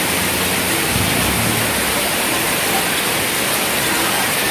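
Heavy rain pouring steadily onto wet pavement: a loud, even hiss with no let-up.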